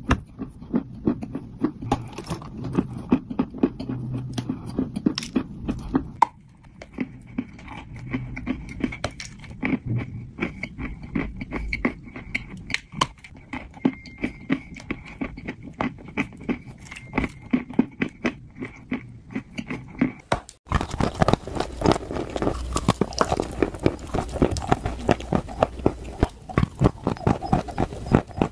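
Dry orange clay being bitten and chewed close to the microphone: crisp crunches several times a second. About two-thirds of the way in the crunching becomes louder and denser.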